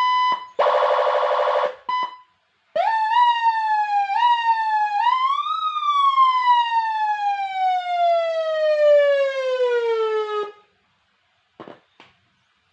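Electronic siren from a 200-watt siren amplifier kit running through its tones: a steady high beep, a short harsh buzzing horn tone, then a wail that climbs in steps and winds slowly down before cutting off about ten seconds in. A couple of faint clicks come near the end.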